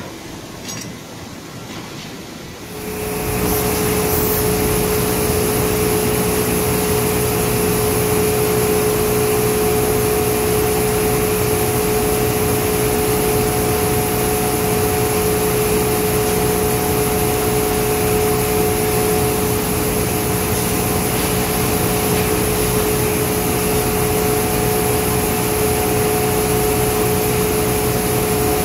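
Packing-line machinery running steadily, a constant motor drone with a steady whine, coming in sharply about three seconds in and holding unchanged; before that, quieter machine sound with a few light ticks.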